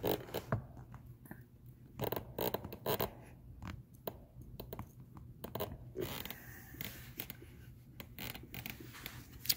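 Irregular scraping and light clicks of a metal tool being worked at a water pump cover to pry it off the housing, where the gasket is stuck.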